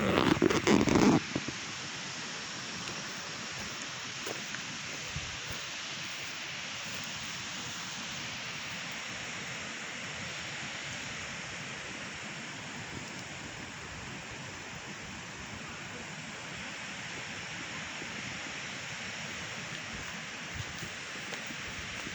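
Steady hiss of heavy rain, after a brief loud buffeting in the first second or so.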